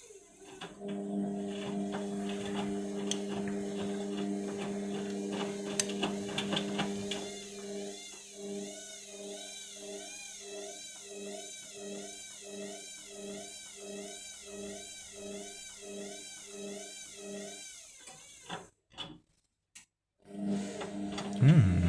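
Indesit washing machine's motor running the drum with a low hum and a whine that wavers up and down a little more than once a second, as it struggles to balance an unbalanced load for the final spin. It stops about three-quarters of the way through, goes quiet for a couple of seconds, then starts again with a loud thump near the end.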